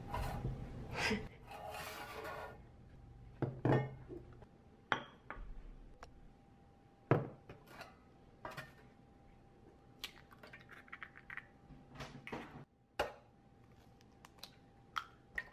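Scattered knocks and clinks of a stainless steel tray being handled on a stone countertop, with eggs tapped and cracked into it.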